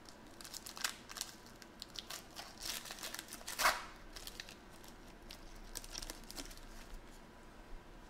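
Foil trading-card pack being torn open and crinkled in the hands, a run of crackly rips with the loudest about three and a half seconds in, followed by fainter crinkles as the wrapper is pulled off the cards.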